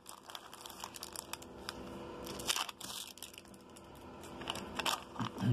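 Wrapping of a 1988 Fleer rack pack of baseball cards crinkling and tearing as it is peeled open by hand, in irregular crackles with a few louder rips.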